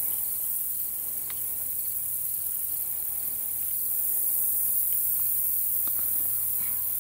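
Steady, high-pitched chorus of insects such as crickets in a pasture, with a faint low hum underneath.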